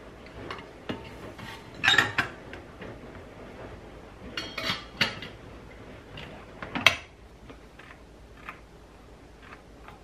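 Stainless steel inner water pot of a Stena steam humidifier clinking and knocking against the unit's body as it is set in place, then the humidifier's lid being shut: a string of separate sharp metallic clinks and knocks, the loudest about two seconds in and about seven seconds in.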